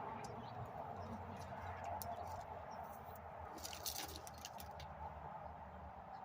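Faint steady background hum with a few light clicks and rustles about three and a half to four seconds in, like small handling noises.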